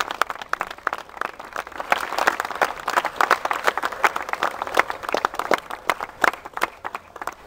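Audience applauding: a steady patter of many hand claps.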